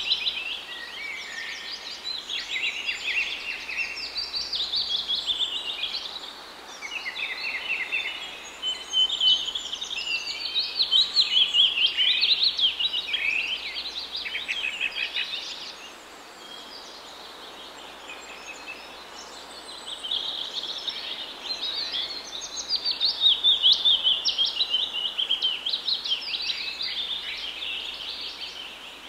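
Several small birds singing and chirping together in a dense chorus of quick high trills and notes over a faint background hiss, thinning out briefly about halfway through before picking up again.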